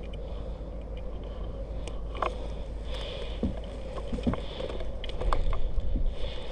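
Steady low rumble of outdoor field noise with a faint steady hum, broken by a handful of scattered sharp clicks and snaps.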